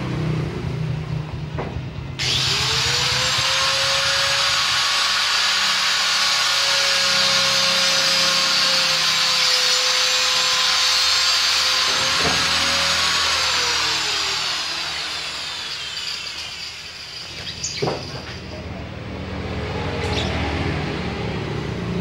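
A power tool switches on abruptly, runs at a steady high whine for about eleven seconds, then winds down with a falling pitch. A low engine rumble runs underneath.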